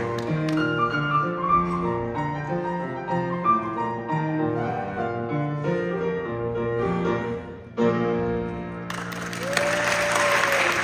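Yamaha grand piano playing a solo passage of chords over a stepping bass line. Near the end a clarinet comes in with a held note that bends in pitch.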